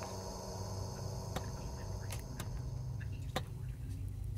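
Side cutters snipping component leads at a circuit board: four sharp, separate clicks at uneven spacing, over a steady low hum.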